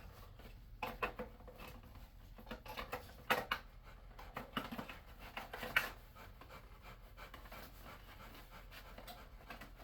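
Scattered clicks, taps and rustling as the parts and packaging of an unboxed diesel heater kit are handled, the sharpest clicks a few seconds in.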